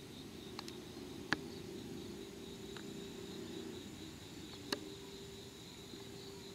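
Insects chirring steadily, a high continuous buzz, over a low hum, with two sharp clicks, one about a second in and one near five seconds in.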